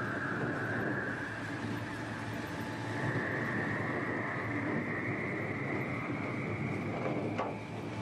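ZiL-130 truck driving, its running sound carrying a steady whine that rises slowly in pitch. Near the end there is a brief sound that falls quickly in pitch.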